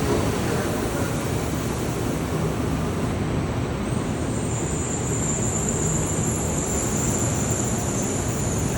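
Shinkansen train running, a steady rumble and rush of noise with no let-up, joined about four seconds in by a thin, high, steady hiss.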